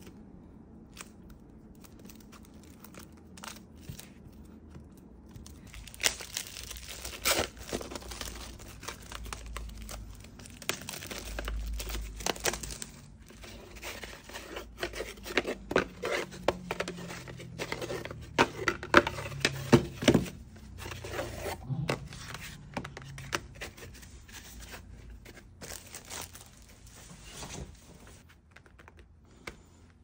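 Plastic wrapping being torn open and crumpled off a canvas panel, crackling and rustling on and off, loudest about two-thirds of the way through. There is little sound in the first several seconds.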